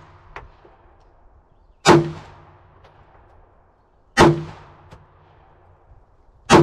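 Three pistol shots fired one at a time, about two and a half seconds apart, each with a sharp crack and a long fading echo.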